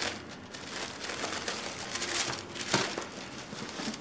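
White paper wrapping crinkling and rustling in irregular bursts as hands pull it open in a cardboard box and lift out a knitted sweater, loudest about two to three seconds in.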